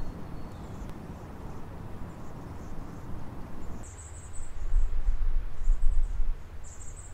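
Outdoor ambience: a steady even background noise at first, then, about four seconds in, a low rumble with three short, very high bird chirps.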